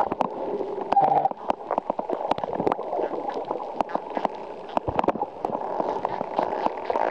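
Underwater sound: a muffled rushing water noise with many sharp, scattered clicks and a short buzzy tone about a second in.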